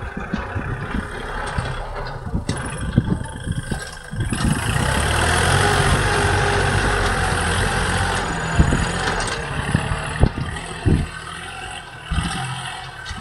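Kubota L4018 tractor's diesel engine running under load as it pulls a disc plough through dry field soil. It grows louder from about four seconds in until about nine seconds in, with scattered low thumps.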